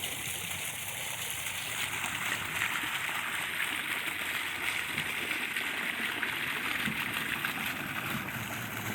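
Decorative water fountain spraying, its falling water splashing in a steady rush.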